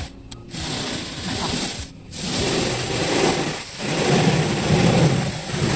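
Automatic car wash spraying water over the car, heard from inside the cabin: a loud, steady rush of water with the wash machinery rumbling underneath. It cuts out briefly twice in the first two seconds, then runs on.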